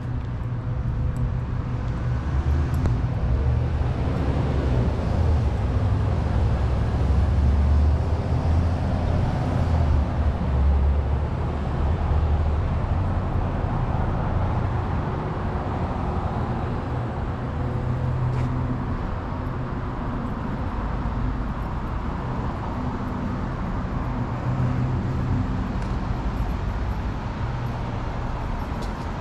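Street traffic: a motor vehicle's engine rumbling low and steadily, swelling for several seconds a few seconds in and then easing off, over a light town-street background.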